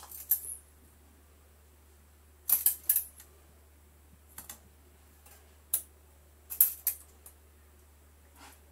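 Steel tape measure being handled on a granite slab: a scattering of short, sharp clicks and taps as the blade is pulled out and laid against the stone. The loudest clusters come a third of the way in and about three-quarters through.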